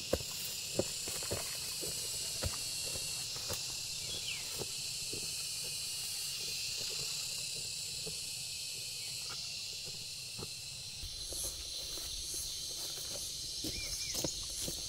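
A steady, high-pitched outdoor insect chorus, with irregular light knocks and steps over it, more of them at the start and again near the end.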